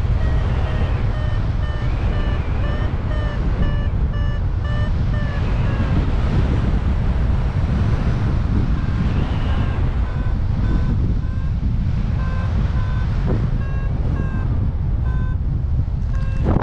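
Airflow rushing over the microphone in flight, with a paragliding variometer giving short, evenly spaced beeps. The pitch steps slightly down at first, the beeps drop out for a few seconds midway, then resume: the vario signalling climbing in lift.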